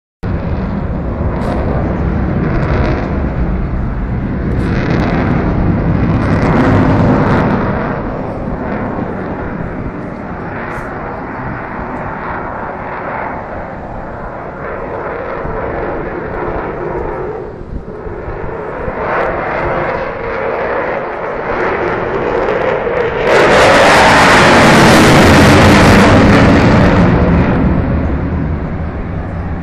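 Eurofighter Typhoon's twin EJ200 turbofan jet engines, a continuous rumbling jet noise that swells and fades as the fighter climbs and loops. The sound grows much louder for about four seconds near the end.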